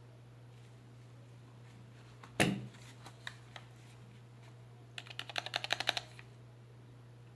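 A thump, then keys clicking on a Womier K66 mechanical keyboard: a few single presses, then a quick run of about a dozen keystrokes near the end.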